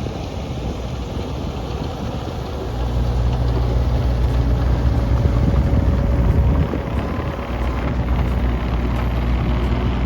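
Mini excavator's diesel engine running steadily, its level rising about three seconds in as the machine works and easing briefly near seven seconds.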